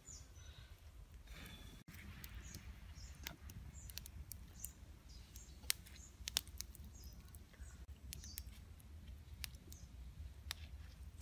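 Wood fire crackling under a spit-roasted whole chicken, with irregular sharp pops and clicks, a few louder ones after the middle. Faint high bird chirps come and go behind it.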